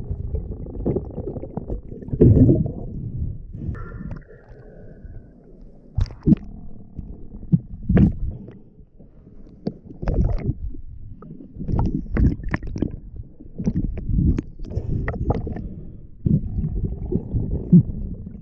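Muffled, irregular rumbling and sloshing of water around an underwater camera as a freediver moves through shallow lake water. Scattered sharp clicks and knocks come in the second half.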